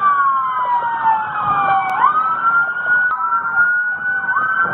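Police car sirens wailing, more than one at once, each pitch sweeping slowly down and back up so that the wails overlap.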